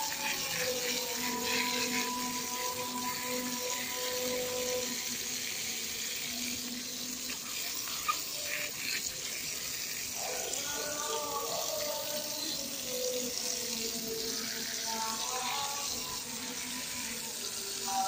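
Running water pouring and splashing over a car battery's plastic casing, a steady rush, as the soap used to neutralise the battery acid residue is rinsed off.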